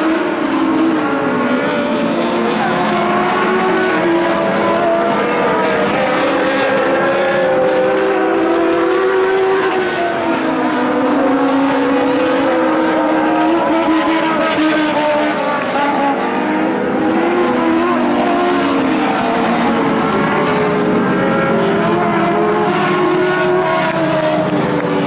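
Engines of several dirt-track race cars running laps together, their overlapping pitches rising and falling as they rev up and back off.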